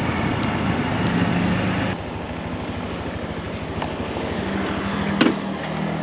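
Moped engine running, with wind noise; the sound drops and changes abruptly about two seconds in.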